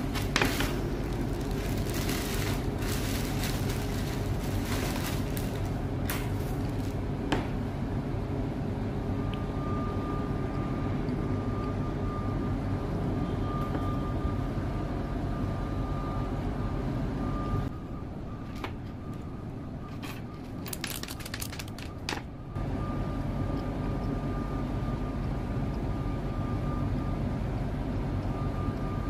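A steady low mechanical hum with a thin high whine that comes in about a third of the way through. The hum drops away for a few seconds about two-thirds in, where a cluster of sharp clicks stands out, and a few more clicks come near the start.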